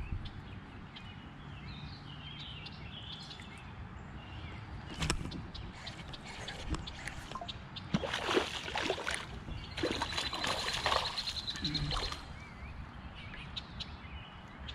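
Water splashing and sloshing in two short bursts past the middle, over a low outdoor background.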